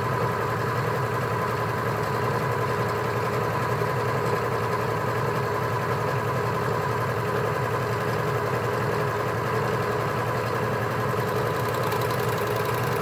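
Janome overlocker (serger) running steadily at speed, stitching a rolled hem along a fabric edge: an even mechanical whir with a steady hum.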